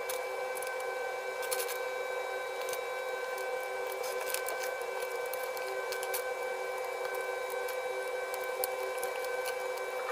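Scattered sharp clicks of plastic Lego bricks being handled and pressed together, over a steady hum of several fixed tones.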